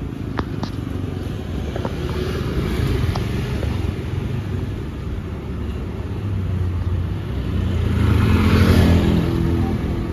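Street traffic: a garbage truck's engine running steadily with motorbikes going by. About eight seconds in, a motor scooter passes close and revs up, the loudest part.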